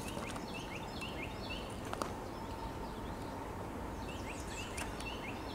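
A songbird sings two phrases of short, quickly repeated falling notes, one just after the start and one about four seconds in, over steady outdoor background noise. A faint steady tone runs beneath from about halfway through.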